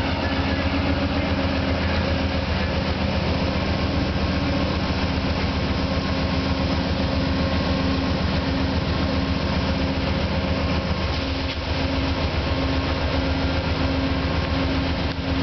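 Amtrak GE P42DC diesel locomotive idling at a standstill: a steady, low engine hum with layered tones. One of the tones drops out about eleven seconds in.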